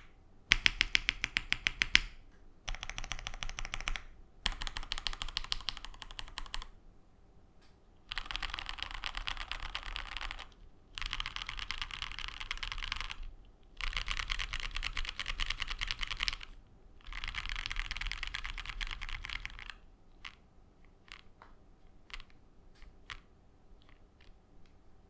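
Plateless KBDFans KBD67 Lite R2 mechanical keyboard with lubed Lavender linear switches and JTK Zen keycaps. For the first six seconds or so the modifier keys are pressed in short repeated runs. From about eight seconds in come four long runs of rapid keystrokes rolled across the asdfghjkl home row, and it ends with a few scattered single key presses.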